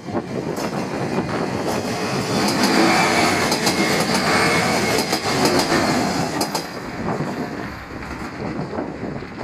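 JR Shikoku 1500-series diesel railcar passing, its wheels clicking over the rail joints. The clicking is loudest in the middle and stops after about six and a half seconds, leaving a fading rumble.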